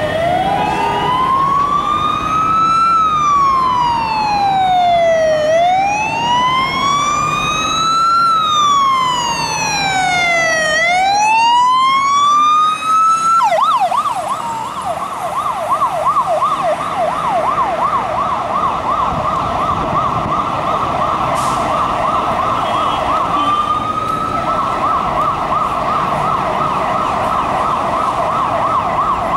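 A London Fire Brigade Mercedes-Benz Atego fire engine's two-tone electronic siren sounds a slow wail, rising and falling about every five seconds. About halfway through it switches to a fast yelp, several quick up-and-down sweeps a second, which breaks briefly into a single rise near the end.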